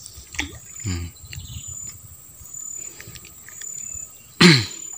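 Insects droning steadily in the riverside vegetation, a thin high-pitched tone, with a few faint clicks. About four and a half seconds in comes one brief loud sound that falls in pitch.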